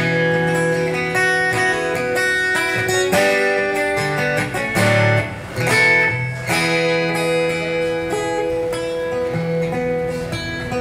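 Solo acoustic guitar strummed and picked through an instrumental break, with chords changing every second or two and a brief drop in loudness about halfway through.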